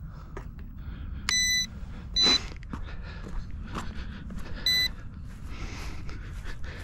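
Electronic beeps from radio-control gear: three high, single-pitched beeps at uneven intervals, the first a little longer, over wind and handling noise.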